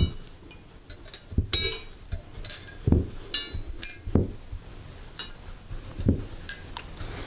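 Steel Mac Tools combination wrenches clinking against each other as they are flipped over and handled: a dozen or so separate metallic clinks, several with a short bright ring.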